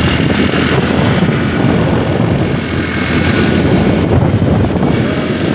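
Steady rush of wind buffeting the microphone on a moving motorcycle, with the bike's engine and road traffic mixed underneath.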